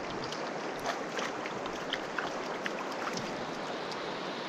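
Shallow creek water running steadily over a rocky bed, with small ticks of splashing scattered through the rush.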